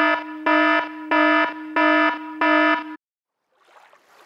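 Five identical electronic alarm-style buzzer beeps, evenly spaced at about one and a half per second, each a steady buzzy tone that starts and stops abruptly, added as a sound effect. They cut off about three seconds in, leaving faint water sounds from wading.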